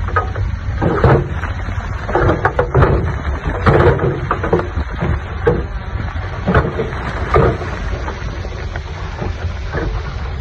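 Heavy diesel construction machinery running with a steady low rumble, with irregular clanks and knocks through it, typical of a loader or dump truck handling stone.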